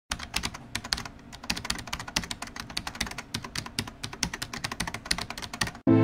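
Computer keyboard typing: rapid, irregular key clicks that stop suddenly just before the end.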